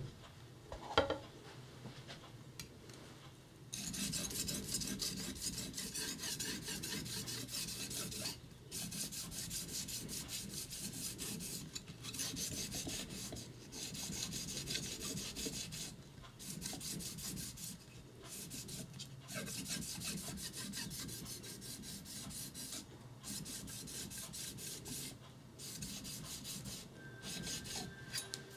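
Yanagiba blade rubbed back and forth with its flat back side on a medium-grit whetstone, a rapid scraping rasp of steel on stone in runs of strokes with short pauses between them; the stage of refreshing the uraoshi, the narrow flat band on the back. Two light knocks in the first second as the blade is set down.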